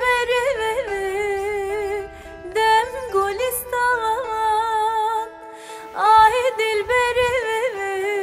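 Background music: a solo voice singing an ornamented, wavering melody in phrases, over held accompanying notes.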